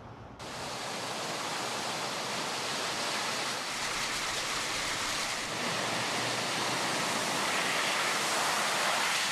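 Heavy rain pouring down onto a flooded road: a steady, dense hiss of falling water that starts about half a second in and grows a little louder near the end.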